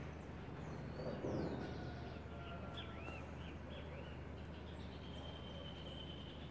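Birds calling over steady background noise: a quick run of short, arching chirps about three seconds in, and a thin steady high note near the end. A low bump about a second in.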